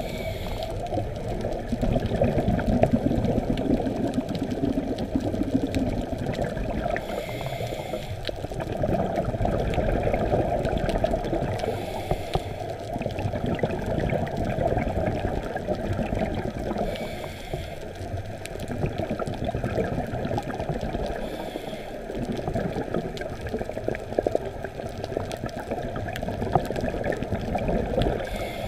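Underwater sound through a dive camera's housing: a steady low rush of water, with scuba regulator exhaust bubbles hissing about every four to five seconds.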